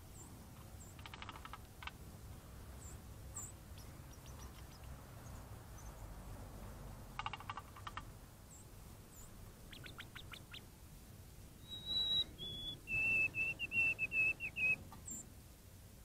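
White-throated sparrow singing its clear whistled song about twelve seconds in: one high note, a slightly lower note, then a run of wavering repeated notes on one pitch. Before it come several brief bursts of splashing from the sparrow bathing in the shallow water of a bird bath, with faint high chips from other birds.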